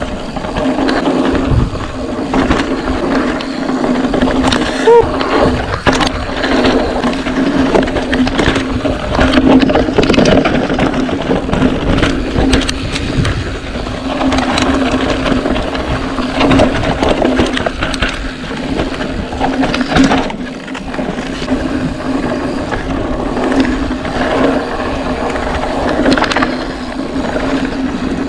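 Scott Spark 960 full-suspension mountain bike (CYC Photon electric conversion) descending a rough dirt trail: tyres rumbling and crunching over the dirt, with chain and frame clattering and sharp knocks over bumps and roots. A steady hum runs underneath.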